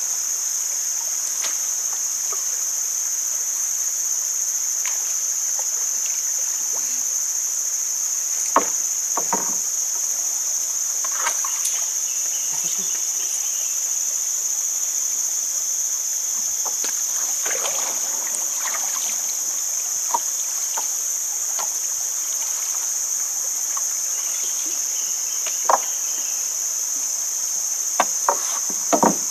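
Steady, loud shrill chorus of insects in the riverside forest, a constant high drone. A few scattered knocks and clunks sound against the wooden boat as the set line is hauled in, the sharpest about two thirds of the way in and several close together near the end.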